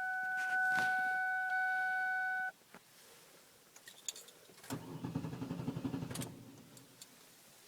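A steady car warning chime that cuts off about a third of the way in, a few clicks of keys, then the starter motor cranks for about a second and a half and stops without the engine catching: a car that won't start.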